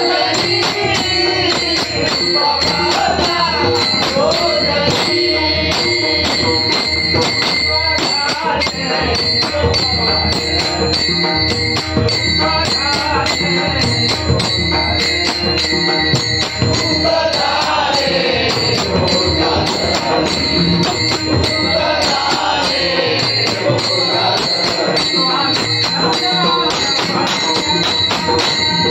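Konkan devotional bhajan: an elderly man sings the lead in a powerful voice, with other men joining in, to a harmonium, a laced pakhawaj-style barrel drum and brass hand cymbals (taal) clashing in a steady, fast rhythm.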